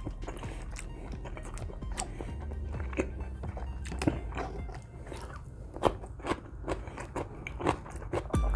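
A person chewing a mouthful of rice close to the microphone, with sharp mouth clicks that come more often and louder in the second half. Background music plays under it.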